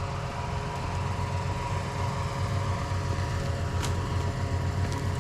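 Farm tractor engine running steadily: a low, even hum with no change in speed.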